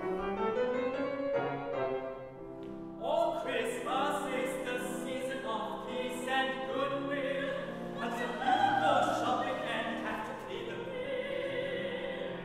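Grand piano accompaniment, joined about three seconds in by an operatic solo voice singing with vibrato.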